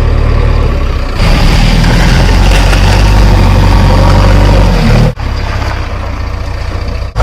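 Backhoe loader's diesel engine running steadily with a low, heavy drone. The sound jumps abruptly in level about a second in and again about five seconds in.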